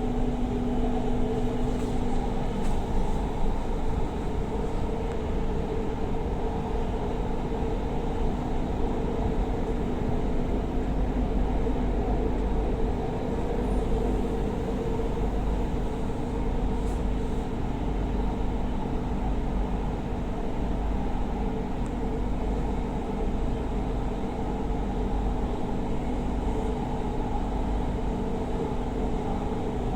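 Steady rumble and hum of a Doha Metro train, heard inside the carriage as it runs between stations. A faint steady tone fades out about two seconds in.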